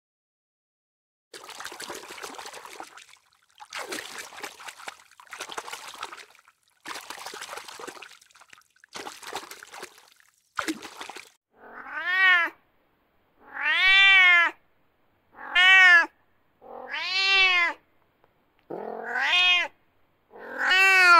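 Water splashing in about six short noisy bursts as koi carp thrash at the pond surface, then a cat meowing six times, each meow rising and then falling in pitch. The meows are the loudest part.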